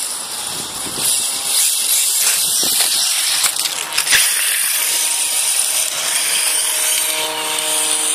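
Electric 1/8-scale RC buggy (Serpent 811 Be) running over grass and dirt, with a couple of sharp knocks about four seconds in as it passes close, and a steady motor whine near the end.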